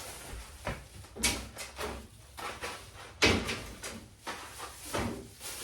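Groceries being handled and put away in a refrigerator: a few separate knocks and clatters, the loudest about three seconds in.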